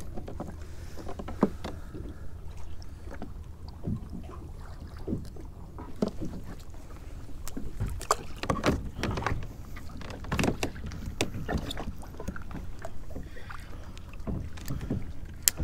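Scattered knocks and clicks of a fishing rod, reel and rig being handled aboard a plastic pedal kayak, over a steady low rumble of water and wind against the hull.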